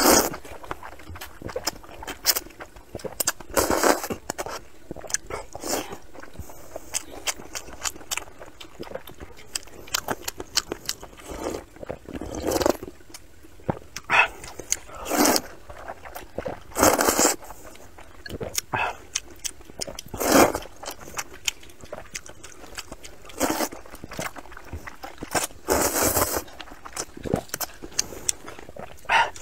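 Noodles in broth being slurped and chewed close to the microphone: loud sucking slurps at irregular intervals several seconds apart, with wet smacking chewing sounds between them.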